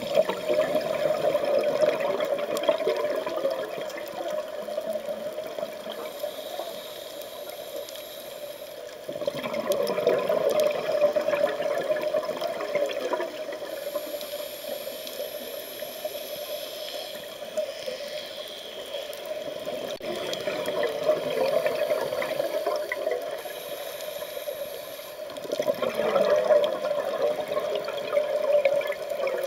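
Scuba regulator exhaust bubbles gurgling and rumbling in bursts of a few seconds, four times, as the diver breathes out underwater, with a steady muffled water hiss between the breaths.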